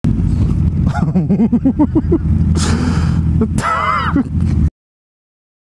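Sportbike engines running at low speed, with a short burst of noise about two and a half seconds in as the motorcycle ahead goes down on its side, then a man crying out. The sound cuts off abruptly near the end.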